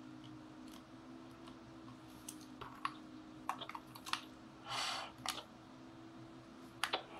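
Button presses and plastic handling clicks on an AOR AR8200 handheld scanner receiver as it is keyed in, a scattered series of sharp clicks from about two seconds in with a short hiss midway, over a faint steady hum.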